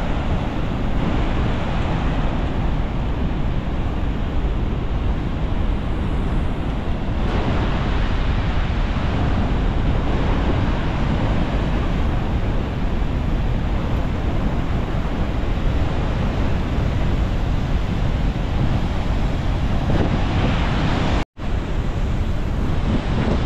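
Steady rush of water falling at Niagara Falls, mixed with wind buffeting the microphone. The sound cuts out for an instant near the end.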